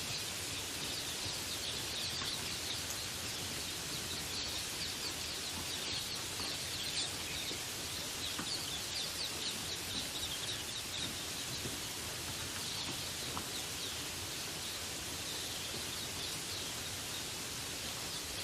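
Steady rain hiss with birds chirping over it in quick, high runs of notes, busiest in the first half and thinning out in the second.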